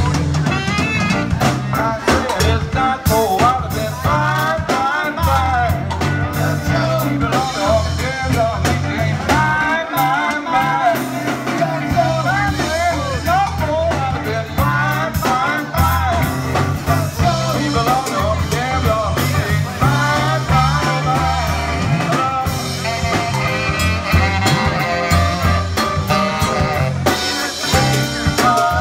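Live band playing: a lead vocal over electric guitar, bass guitar and drum kit, with saxophone.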